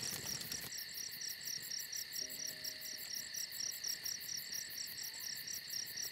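Crickets chirping at night: a steady, high-pitched trill pulsing about eight or nine times a second.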